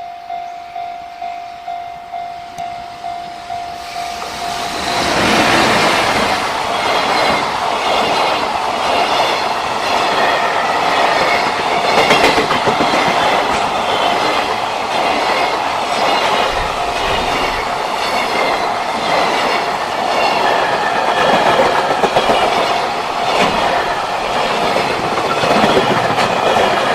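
Level-crossing alarm bell ringing in quick even dings, then about four seconds in a freight train arrives and passes the crossing, a long train of wagons clattering over the rail joints in a steady repeating rhythm that drowns out the bell.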